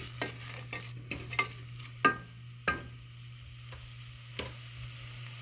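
Chopped onion sizzling as it fries in a pot, with a spoon scraping and clicking against the metal as it is stirred; two sharper clinks ring out about two seconds in and again shortly after. A steady low hum runs underneath.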